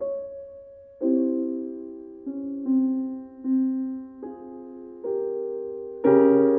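Slow, soft piano music: single notes and chords struck about once a second, each ringing and fading away, with a fuller, louder chord near the end.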